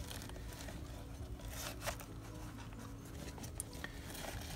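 Faint handling noises as hands move items in the pockets of a fabric organizer bag: a few light rustles and taps, about two seconds in and again later, over a steady low hum.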